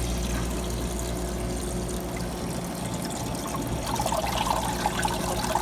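Water pouring and trickling into a Manitowoc ice machine's water trough as the fill valve fills it for a freeze cycle, steady throughout, over a low steady hum.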